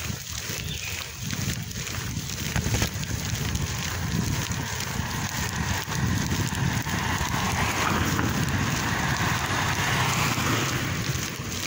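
Wind buffeting a phone's microphone during a bicycle ride, with a broad hiss that swells from about six seconds in and eases near the end.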